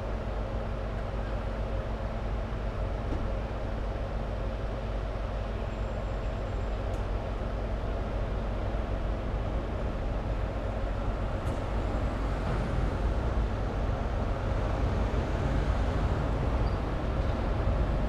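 Heavy diesel machinery running steadily: a constant engine hum over a low rumble that grows a little louder in the second half.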